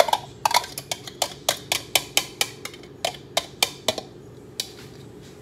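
A quick run of sharp clicks and taps, about four a second for some four seconds, with one more shortly after, as a plastic bag is shaken and emptied over the inner pot of an electric cooker.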